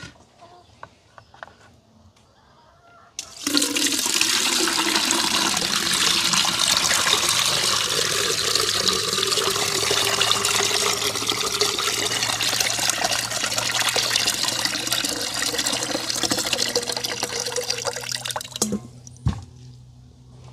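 Water running in a steady stream. It starts suddenly about three seconds in and runs evenly for about fifteen seconds before dying away near the end.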